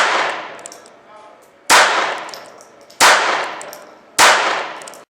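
Jennings J-22 .22 LR semi-automatic pistol firing four shots a little over a second apart, each ringing out briefly after it. The pistol is cycling and feeding normally, emptying the rest of the magazine after an initial failure to feed.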